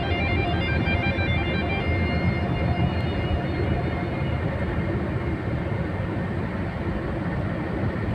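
Steady road noise of a moving vehicle, with background music that fades out about three seconds in.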